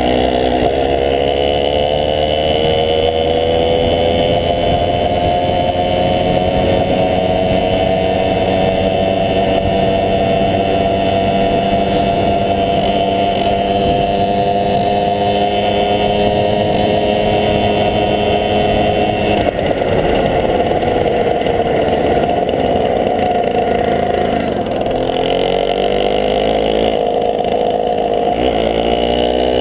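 A 1971 Tunturi Maxi moped's small two-stroke engine running under way. Its pitch climbs over the first several seconds and then holds steady. It falls away about two-thirds of the way through, dips once more, and climbs again near the end.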